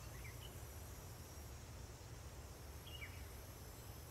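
Faint nature ambience: a low steady hum and hiss with a few soft, short bird chirps, two near the start and one about three seconds in that falls in pitch.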